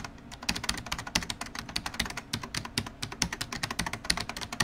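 Fast computer-keyboard typing: a quick, irregular clatter of keystrokes, many per second.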